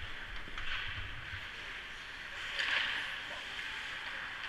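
Indoor ice rink ambience during a hockey game: a steady hiss of skates on the ice and the arena's air, swelling briefly near three seconds, with a few dull low thumps in the first second and a half.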